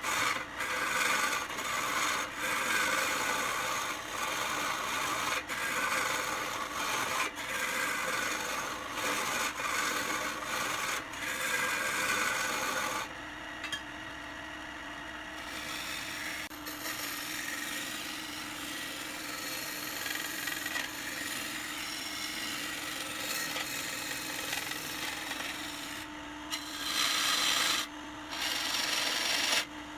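Woodturning on a lathe: a tool scraping and cutting spinning wood, a rasping rub that comes in strokes with short breaks for the first half, over a steady motor hum. The rasping eases off about halfway through and returns louder for a couple of seconds near the end.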